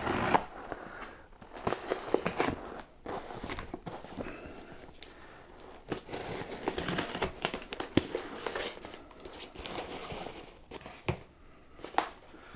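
A shipping parcel being cut open with a knife and unpacked: irregular crinkling and rustling of packaging, with scattered sharp clicks and taps.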